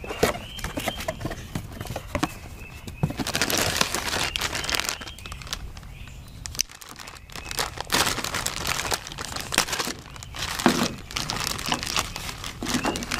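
Clear plastic bags crinkling and rustling as they are handled, in several uneven bursts.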